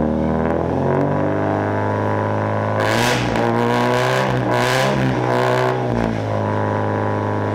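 Subaru BRZ rally car's flat-four engine running through its exhaust, mostly at a steady idle with two brief rises in revs about three and five seconds in.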